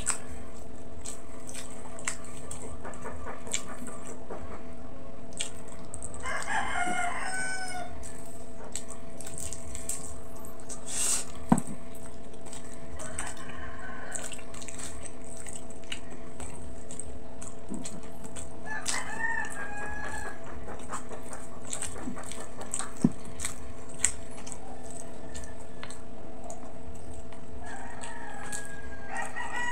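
A rooster crows four times in the background over a steady hum. Scattered soft clicks and smacks of chewing come through, with a couple of sharper clicks in between.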